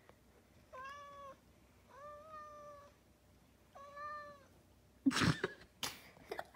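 Recorded domestic cat meows played back: three separate meows, each under a second long, in the first four seconds. Two short, loud noises follow near the end.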